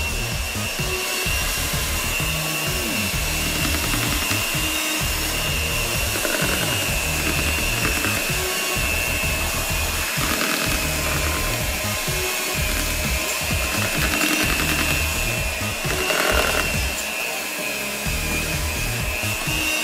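Electric hand mixer running steadily with a constant motor whine, its beaters churning a thick batter in a plastic bowl as dry ingredients are poured in.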